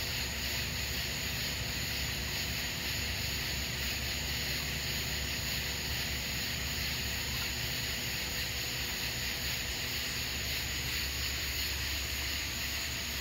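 Aquarium equipment running: a steady hiss with a low hum underneath.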